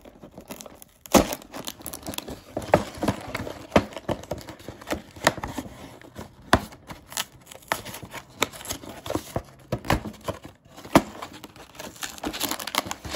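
A cardboard LEGO box being opened by hand: the perforated tabs and flaps torn and pulled open, with irregular sharp snaps and cardboard rustling.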